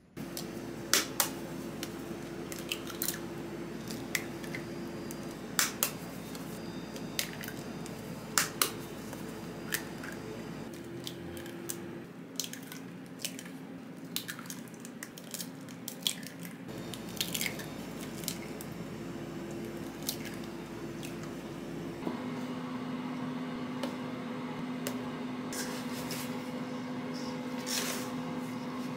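Kitchen prep sounds over a steady hum: eggs cracked one after another against a glass bowl, giving many sharp taps and shell clicks, and near the end a silicone spatula squishing through macaron batter in a stainless steel bowl.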